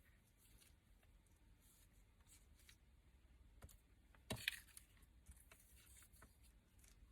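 Near silence with faint rustling and clicks of paper craft toppers being handled, and one sharper tap or rustle a little over four seconds in.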